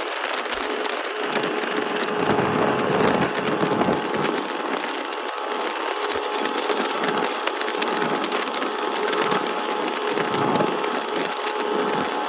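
Steady crackling rush of wind and water noise from a boat under way, with a faint steady engine tone underneath.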